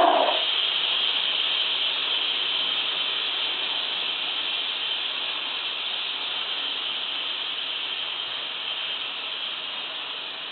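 Compressed air hissing steadily out of a Mateus two-piston air compressor's receiver, slowly fading. The air is bleeding back past the check valve, which is not holding pressure after the motor stops.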